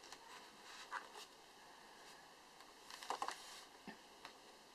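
Faint handling noises of crochet work: soft rustles and light clicks of a crochet hook and thread, with a brief louder rustle about three seconds in.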